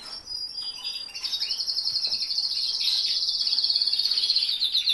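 Domestic canary singing a long, fast trill of rapidly repeated high notes that starts about half a second in, with other short canary chirps around it.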